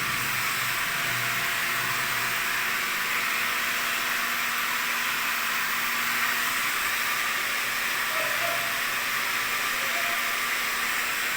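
Raw-water pump of a reverse-osmosis water refilling station running, with a steady hiss of water flowing through the system.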